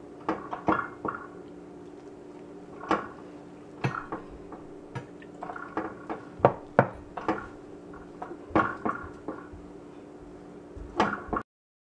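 Hand mixing wheat flour and water into dough in a glass bowl: irregular taps and knocks of fingers and knuckles against the glass, over a faint steady hum. The sound cuts off suddenly near the end.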